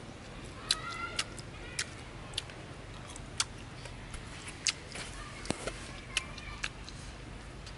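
Someone chewing grilled sausage with the mouth open: a run of short, sharp, wet lip-smacks and clicks at uneven intervals.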